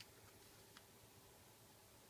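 Near silence: faint room tone with two faint, short clicks, one right at the start and one a little under a second in.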